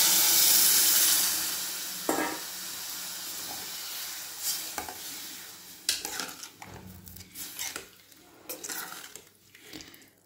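Water poured into a hot aluminium pressure cooker onto fried masala and chickpeas, hissing loudly for about the first two seconds and fading, then a steel spoon stirring the mix and clinking and scraping against the pot.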